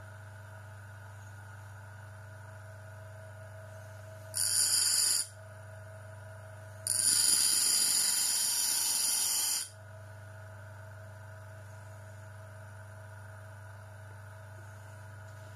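Homemade bench grinder's electric motor running steadily with a low hum, with two bursts of loud hissing grinding noise, a short one and then a longer one of about three seconds, as metal is pressed against the spinning wheel.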